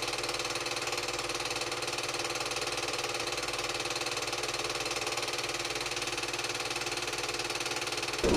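A machine running steadily with a fast, even rhythm, cut off abruptly just before the end by a louder sound.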